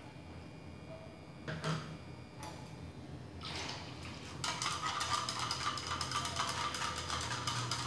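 Chopsticks stirring fast inside a small glass jar, a quick run of light clinks and scrapes against the glass that starts about four and a half seconds in. Before it come a couple of short bumps and liquid noises.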